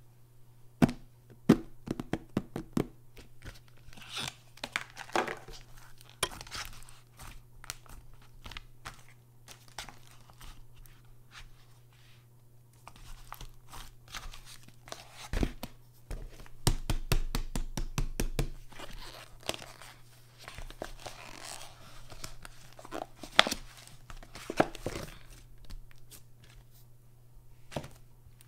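A tub of firm pink slime being opened and handled by hand: crinkling, tearing and crunching with many sharp clicks and taps as the slime is pulled apart and lifted out of the tub. A quick run of clicks comes about two-thirds of the way through, and the loudest tap a few seconds later.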